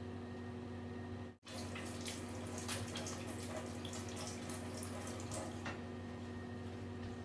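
Hot oil sizzling and crackling in a stainless frying pan, many small pops over a steady low hum. The sound drops out for an instant about a second and a half in, and the crackling is busier after that.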